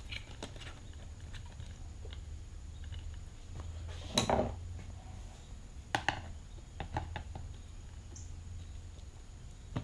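Light clicks and knocks from handling and prying at the plastic housing of an electric string trimmer during disassembly. The sharpest knock comes about four seconds in, with a couple more around six and seven seconds.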